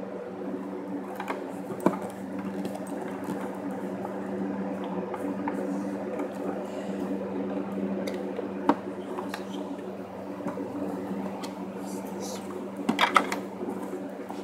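A steady low hum, with a few light clicks and clatters of plastic vacuum-cleaner parts being handled: one about two seconds in, one near nine seconds and a quick cluster near the end.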